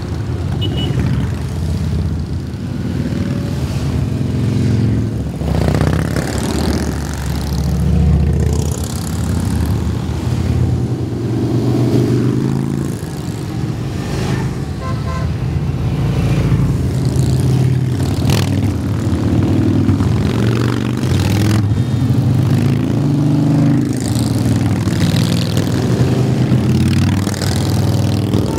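A long procession of cruiser and touring motorcycles riding past one after another, their engines swelling and fading as each bike goes by.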